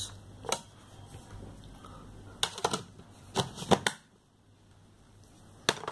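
Hard plastic scientific calculators and their slide-on cases clicking and knocking against a tabletop as they are handled and set down: a single click, then two short clusters of clicks, and one more click near the end.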